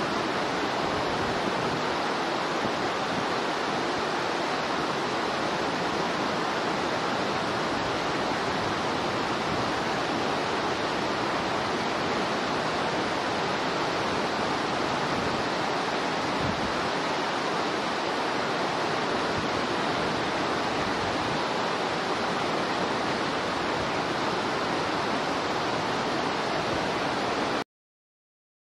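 Steady rushing noise of running water, with no animal calls, cutting off abruptly near the end.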